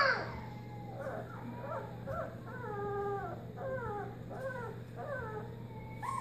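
Australian Shepherd puppy whining: a string of short, high whimpers, most of them falling in pitch, coming two or three a second from about a second in.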